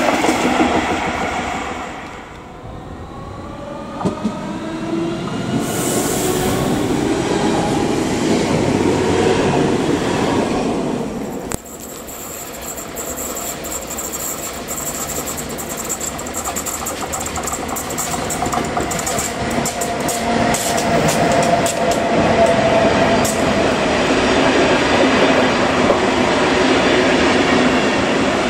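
Passenger trains running through a station. At first the rumble and rattle of a passing train fades, then swells again. After an abrupt break, an electric locomotive hauling passenger coaches approaches and runs past close by, its wheels clattering over the rail joints and growing steadily louder, with a steady whine partway through.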